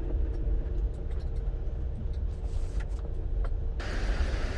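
Low road rumble inside a moving Mercedes Sprinter van, with a steady hum and a few faint clicks. About four seconds in it cuts abruptly to a steady outdoor hiss.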